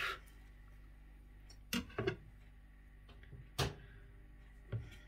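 Four separate knocks of kitchen handling while cooking: two close together a little under two seconds in, then single ones later. The background is otherwise quiet.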